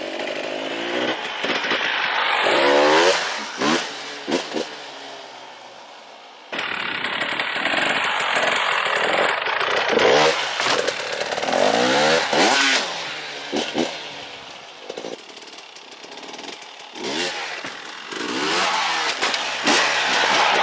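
Single-cylinder two-stroke engine of a KTM 300 XC-W TPI dirt bike being ridden: revving hard and falling off again many times, with brief throttle blips. The sound jumps abruptly in level a few times where the footage is cut.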